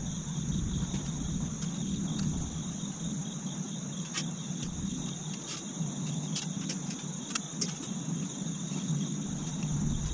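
Scattered light metallic clicks and taps of screws and a small wrench against a stainless-steel heater reflector as it is being assembled. Behind them run a steady high chirring of crickets and a low rumble.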